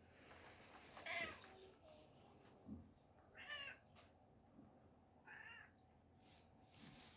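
Domestic cat meowing three times, short greeting calls about two seconds apart.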